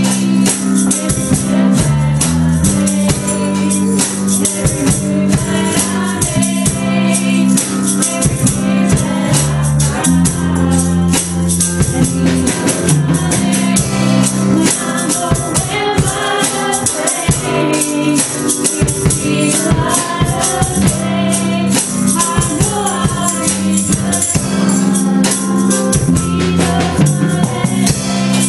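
Live gospel worship music from a small band: drum kit with cymbals keeping a steady beat, guitar and keyboard, and a woman singing lead into a microphone.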